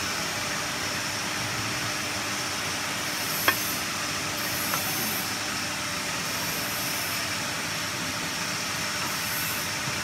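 Steady mechanical hiss of machinery running, with one sharp metallic click about three and a half seconds in and a softer tick a second later as parts of the fitting are handled.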